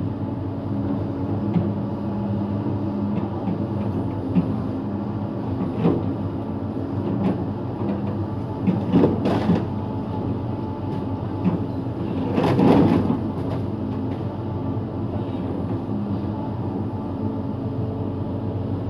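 Hyundai 110 excavator's diesel engine running steadily under load as the bucket pushes into a large tree. Two bursts of crackling come about nine and thirteen seconds in as the tree's wood and branches give way.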